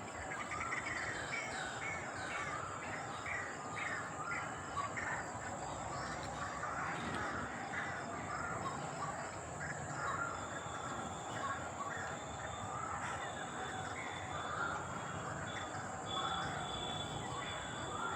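Birds calling over and over in short, quick calls, with a steady high-pitched drone underneath.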